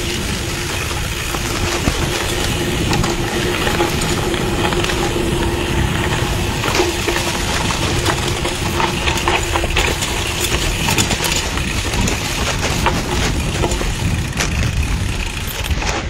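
Mountain bike riding down a dirt forest trail: tyres crunching over dirt, leaves and stones, and the bike rattling over the bumps, with a steady rush of noise from riding speed.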